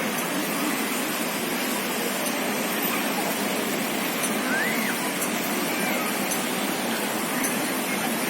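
Steady rushing outdoor noise at an even level, with a couple of faint high chirps that rise and fall about halfway through.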